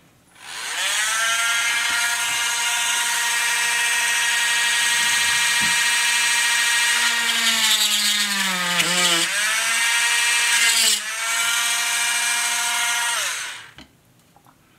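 Dremel rotary tool with a small drill bit running at a steady high whine while drilling a hole through plastic. It spins up at the start, its pitch sags about halfway through as the bit bites into the plastic and dips briefly again a few seconds later, then it winds down and stops near the end.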